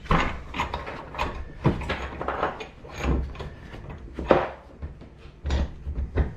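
Irregular knocks, clinks and scrapes of a sinker mould being handled and opened to free freshly cast lead snapper sinkers, with a sharper knock about four seconds in.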